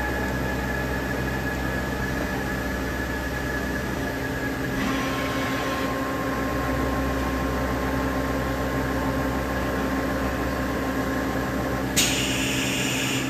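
Matsuura MC-800VFDC twin-spindle CNC vertical machining center running between operations while its tilting rotary tables swing back level. It gives a steady hum with high whining tones, and a new steady whine sets in about five seconds in. Near the end a sudden loud hiss starts.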